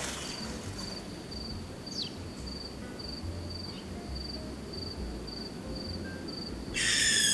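A high, thin chirp repeating steadily about three times a second, like a cricket or other calling insect. Near the end, a loud ringing chime cuts in.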